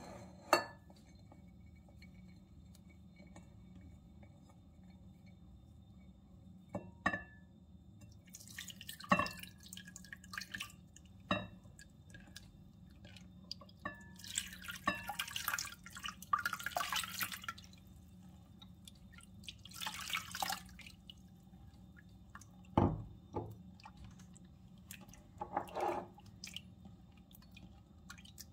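Intermittent food-preparation sounds: scattered light knocks and clinks, with a few noisy bursts of a couple of seconds each.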